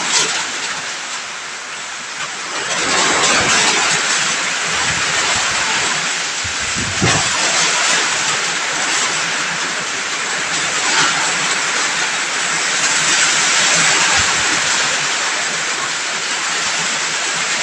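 Heavy rain pouring down in a steady dense hiss, with a brief low rumble of wind gusting about seven seconds in.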